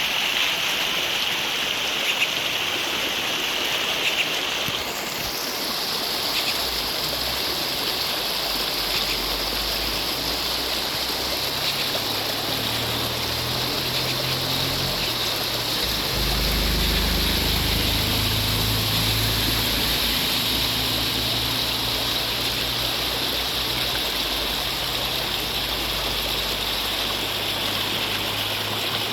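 Steady rush of running water from heavy rain, like a swollen stream. A low rumble joins it about twelve seconds in and is strongest a few seconds later.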